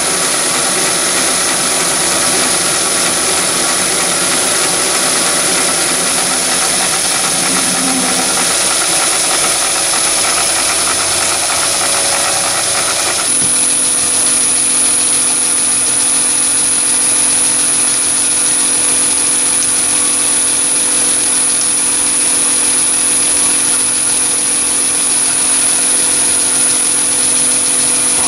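Chinese mini lathe, driven by a three-phase motor on a VFD, running steadily with a high-pitched whine while a turning tool finish-cuts a metal mandrel. About halfway through the sound changes abruptly to the lathe running with a drill in the tailstock chuck being fed into the end of the work.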